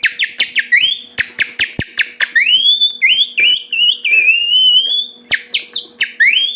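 Rapid bird-like whistled chirps and trills imitating a nightingale, made by sucking air in past a thin film of green onion leaf laid over a finger. Quick sharp chirps give way about two seconds in to longer rising whistles, repeated over and over.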